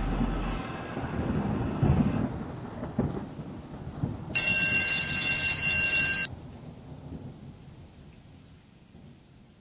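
Rain-and-thunder noise fading out with a few low rumbles, then an electronic school bell tone sounding for about two seconds, starting and stopping abruptly.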